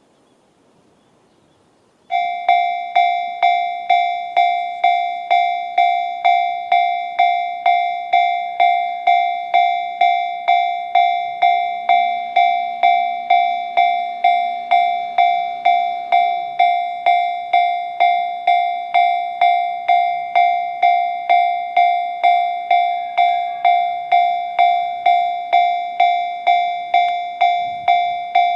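A JR standard electronic level-crossing alarm starts about two seconds in and rings steadily at about two strikes a second, each strike a bright ding that fades before the next.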